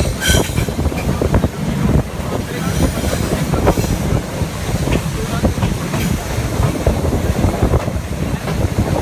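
Passenger coaches of a steam-hauled train running along the track, heard from beside the coaches: a steady rumble with the wheels clicking over the rail joints, and a brief high squeal near the start.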